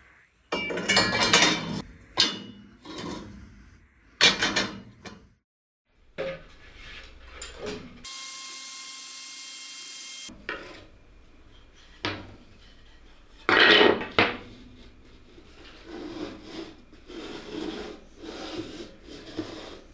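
A string of short workshop noises, metal parts being handled with scraping, rubbing and knocks, broken by sudden cuts. A steady high whine with several tones runs for about two seconds in the middle, and there is a loud scrape or clatter a little later.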